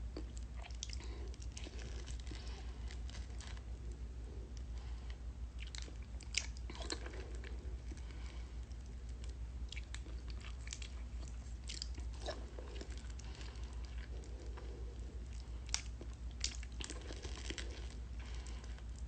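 A person biting and chewing a ripe mango close to the microphone, with irregular wet mouth clicks throughout.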